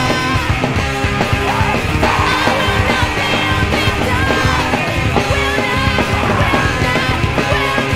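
Emo/post-hardcore band recording: a loud, dense full-band rock passage, steady in level.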